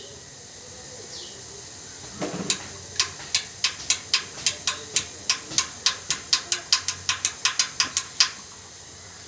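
A soft knock, then a run of light, sharp clicks, about four a second, lasting some six seconds.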